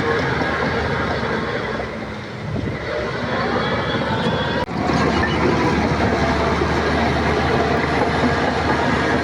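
Shantui crawler bulldozer at work: its diesel engine running steadily with the clatter of the tracks and machinery. The sound eases off briefly about two seconds in and breaks off for an instant near the middle before carrying on.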